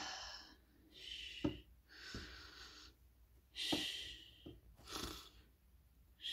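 A person making pretend sleep-breathing sounds for a sleeping doll: five noisy breaths in a row, about a second apart, with faint clicks among them.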